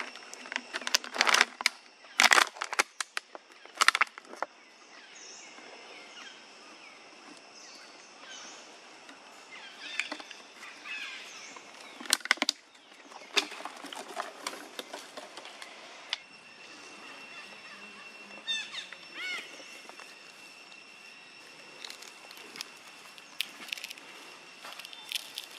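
Empty plastic water bottle crackling and knocking as a macaque grips and handles it, in a burst of sharp crackles over the first few seconds and again about twelve seconds in, with lighter handling clicks between.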